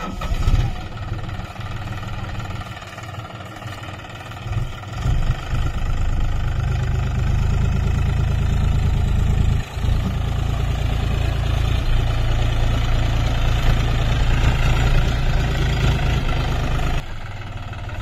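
John Deere 5050D tractor's three-cylinder diesel engine running under load while hauling a fully loaded straw trolley. It grows louder about five seconds in as the tractor pulls away, with a momentary dip near ten seconds.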